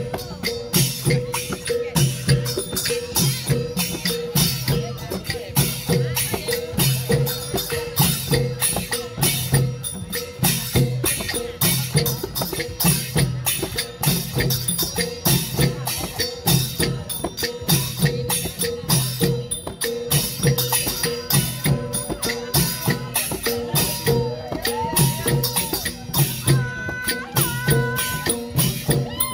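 Thai folk percussion band playing a steady repeating beat: small hand cymbals clashing over thumps from hand drums and strokes on a small hand-held gong, with a steady ringing tone underneath. Wavering higher tones join in during the last several seconds.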